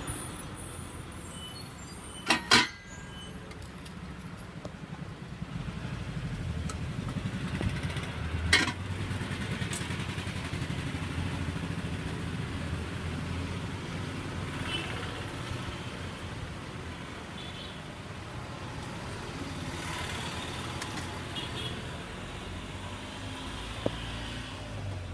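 Road traffic going by, a steady low rumble of engines, with a loud double knock about two seconds in and a single sharp knock about eight seconds in.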